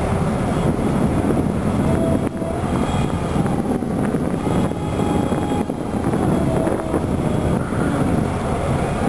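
Wind buffeting the microphone over a steady low rumble of harbour machinery, with faint steady whines.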